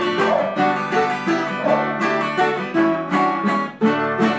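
Instrumental interlude on an acoustic guitar and a ten-string viola caipira, plucked melody notes ringing over the guitar's chords, with no singing.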